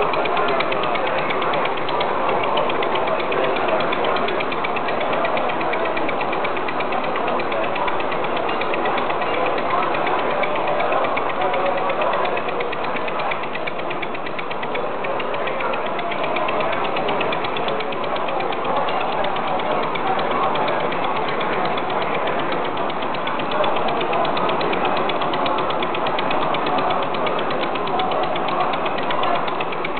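Running scale-model engines: a steady, fast mechanical clatter of many small moving parts ticking rapidly, even in level throughout.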